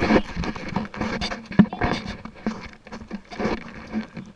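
Irregular knocks, scrapes and rubbing on the camera as it is handled and swung about on a small boat's deck.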